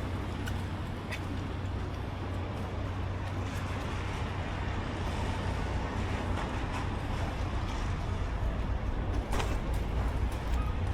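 Steady low rumble of vehicle engines and road traffic, with a single sharp click about nine seconds in.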